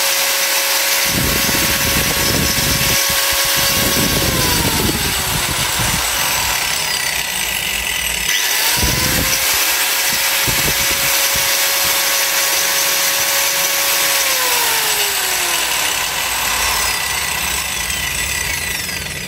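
Pumpkin 4-inch 650 W angle grinder (J-series J-G9612) running with no load, a steady high whine. About four seconds in it is switched off and winds down. About eight and a half seconds in it starts again with a rising whine, runs steadily, then is switched off and spins down over the last few seconds.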